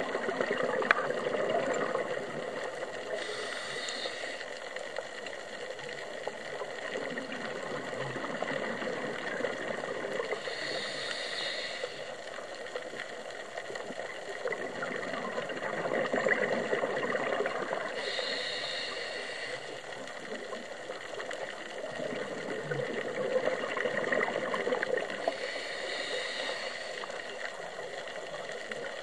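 Scuba diver breathing through a regulator underwater: a hiss on each inhale and a gurgle of exhaust bubbles on each exhale, about one breath every seven or eight seconds, four breaths in all.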